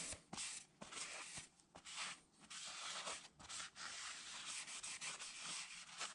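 Blue shop towel wiping across a freshly machined cast-iron drill press table: soft cloth-on-bare-metal rubbing in a series of uneven strokes.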